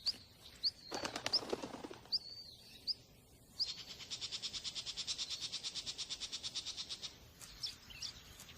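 Small songbird calling: sharp high chirps a little under a second apart, then a fast, even, high trill of about ten notes a second lasting some three and a half seconds, then a few more chirps.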